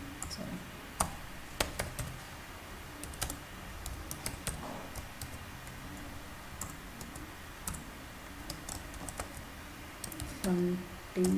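Typing on a computer keyboard: irregular, scattered key clicks. A short hum of a man's voice comes near the end.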